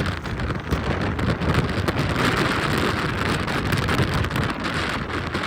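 Rain and small hard hits pelting the body of an armoured storm-chasing vehicle in a tornado's winds, over a steady rush of wind and road noise.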